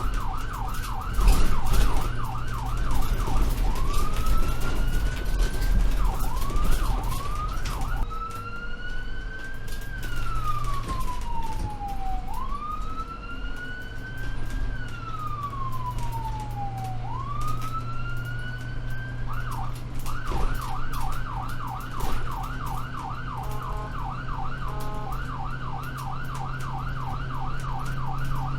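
Ambulance siren switching between a fast yelp and a slow rising-and-falling wail: yelping at first, long wails through the middle, then back to a fast yelp near the end, broken briefly by a choppy stutter. A steady low vehicle hum runs underneath.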